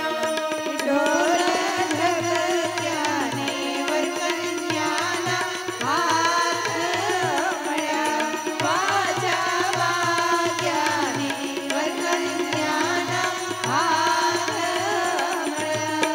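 Women singing a Gujarati wedding song (lagna geet) through microphones, with an electronic keyboard and a steady drum beat backing them.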